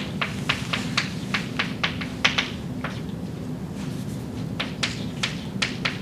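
Chalk writing on a blackboard: a quick, irregular run of sharp taps and short scratches, with a brief pause a little past the middle.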